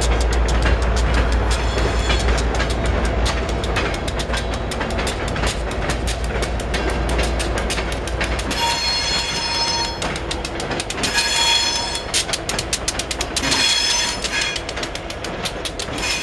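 Freight cars rolling past at low speed, their wheels clicking steadily over the rail joints with a low rumble. In the second half, three brief high-pitched wheel squeals.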